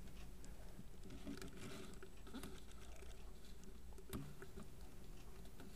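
Quiet room tone with a low steady hum and scattered faint ticks and rustles, with one slightly louder click about four seconds in.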